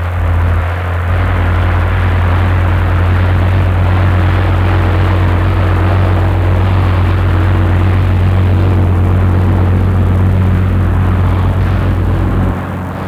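DAF heavy-haulage lorry's diesel engine running as it hauls a heavy low-loader past, a steady low engine drone with road and tyre noise, which drops away near the end.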